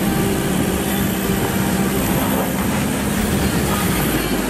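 Mitsubishi Pajero SUV's engine running at low revs as it crawls over rough, rocky off-road ground, with a steady low rumble.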